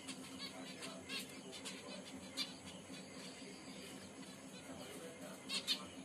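Pet finches in a cage giving short, scattered calls, two louder ones close together near the end.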